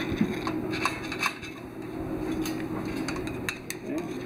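Scattered light metallic clinks and rattles from the hoist chains and steel parts as a large steam-engine piston is worked down into its cylinder. They come over a steady low hum.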